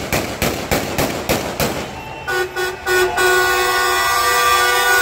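Vehicle horn: three short toots about two seconds in, then a long held blast. Before it, evenly spaced sharp sounds come about three a second.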